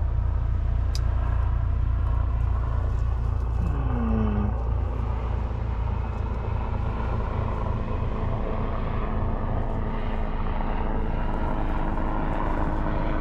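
Helicopters flying over, a steady low drone of rotor and engine with no break.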